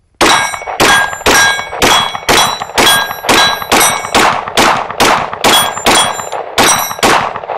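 Shadow Systems MR920 Combat 9 mm pistol fired in a steady string of about fifteen shots, roughly two a second, with a metallic ring on most of them.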